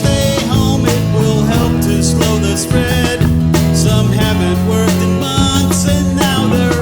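Rock song in an instrumental passage: guitar over bass and a steady drum-kit beat.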